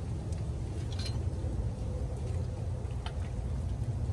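A few faint light clicks from handling a new distributor as it is worked down into its bore in a Ford 5.8 Windsor V8, over a steady low hum.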